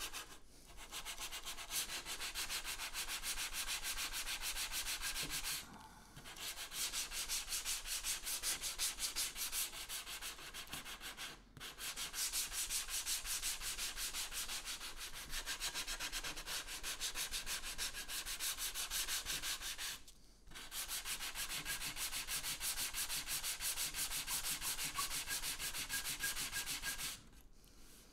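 Hand sanding block with sandpaper rubbing back and forth along the edge of a PVC trim board, in quick, even rasping strokes. It pauses briefly three times and stops near the end.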